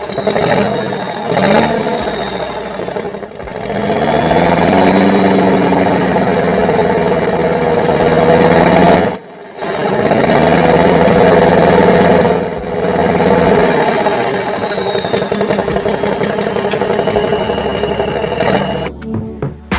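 Heavy-vehicle engine sound revving up and down again and again over a steady high whine. It cuts out briefly about nine seconds in.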